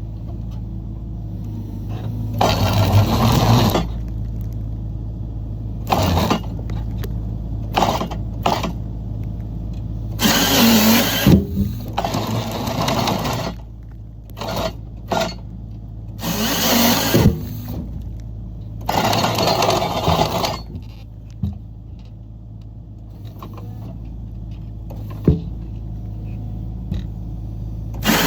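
Forestry processor running steadily on its diesel engine, with repeated loud bursts of one to two seconds as the processor head works cedar logs.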